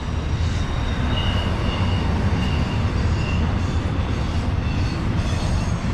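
Train passing: a steady low rumble, with faint high-pitched tones coming and going in the first few seconds.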